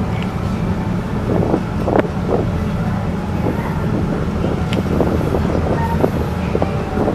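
Car ferry's engines running with a steady low drone that sets the deck vibrating, with scattered short clicks and knocks over the top.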